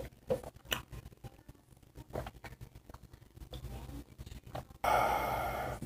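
Faint, sparse mouth clicks from eating. Near the end comes about a second of loud, hissy slurping as orange juice is sipped from a glass.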